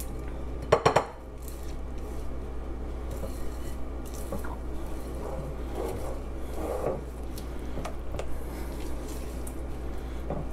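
Silicone spatula stirring a runny butter, sugar and egg mixture in a glass mixing bowl, with three quick knocks against the glass about a second in, then soft scraping and squishing as the batter is worked. A steady low hum runs underneath.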